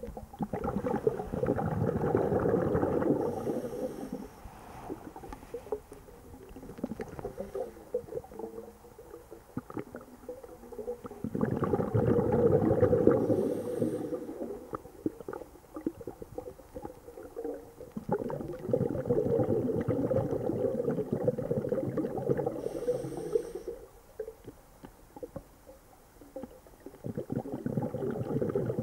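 A diver's breathing recorded underwater: exhaled air bubbling out in four long gurgling bursts, several seconds apart, with a brief faint hiss at the end of three of them.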